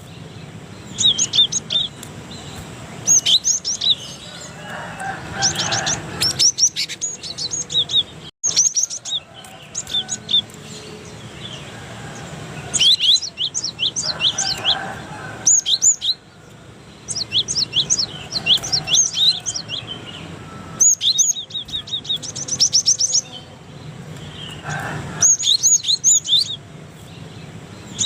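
Cinereous tit (gelatik batu) singing: short bursts of quick, sharp, high chirping notes, repeated with brief pauses between phrases.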